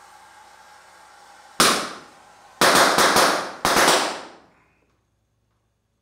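Oxy-acetylene torch with a rosebud heating tip: the flame hisses steadily, then pops sharply about a second and a half in, followed by a quick run of four or five loud pops, after which the hiss is gone and the flame has blown out.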